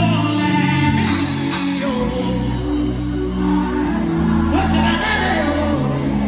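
Live worship band music: a DW drum kit played with cymbal strokes over sustained chords and bass, with a voice singing a gliding melody.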